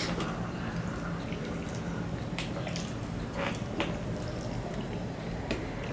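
Wet, close-miked eating sounds of chewing and of fingers mixing rice and curry on a steel plate: soft squelches with about half a dozen short, sharp clicks, over a steady low hum.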